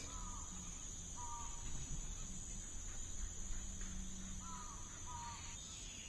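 Quiet pause with a faint steady high whine, two brief pairs of short chirps (one near the start, one about four and a half seconds in) and the soft rustle of a picture-book page being turned.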